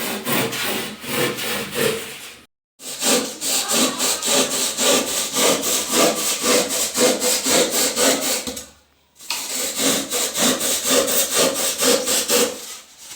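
Rapid rhythmic scratching or rubbing strokes, several a second, broken twice by a brief silence.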